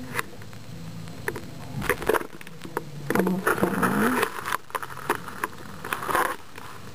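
Rustling and scraping of loose bedding in a gecko tank as a hand moves through it, with scattered sharp clicks from handling.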